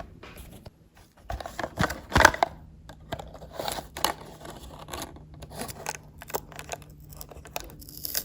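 A small cardboard blind box and its plastic packaging being opened by hand: irregular clicks, scraping, tearing and crinkling, with a sharper knock about two seconds in.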